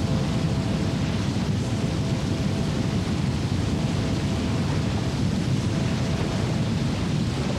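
Steady, heavy rush of a large whitewater rapid, big churning waves of river water with most of the sound low and deep.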